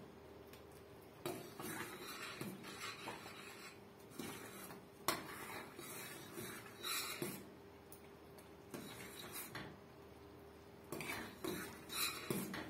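A spoon scraping and knocking against a stainless steel pot while stirring a thickening chocolate cream on the stove, in irregular strokes with a sharper knock about five seconds in.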